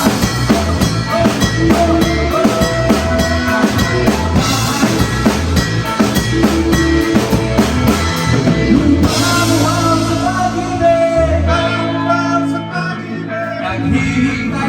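Live rock band playing, with drum kit and guitar. About nine seconds in the drums drop out, leaving sustained guitar notes.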